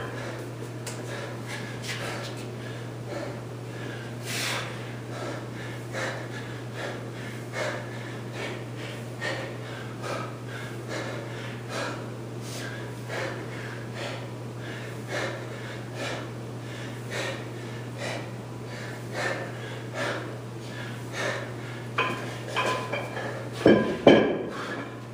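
Hard, rhythmic breathing of a man doing goblet squats, one forceful breath about every second, over a steady low hum. Near the end comes a loud double clunk as the dumbbell is set down on the floor.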